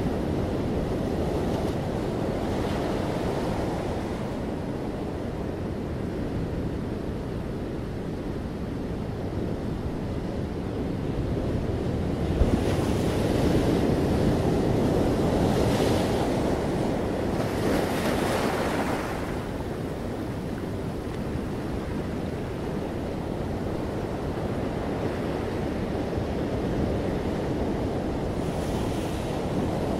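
A steady rushing noise, like wind or surf, that swells and eases, louder around the middle.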